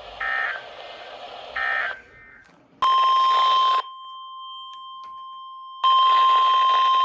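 Emergency Alert System data bursts and the NOAA Weather Radio 1050 Hz warning alarm tone. Two short electronic chirps a second apart come near the start. About three seconds in, a steady single-pitch alarm tone begins and holds. A loud hiss lies over it for about a second, then again from about six seconds in.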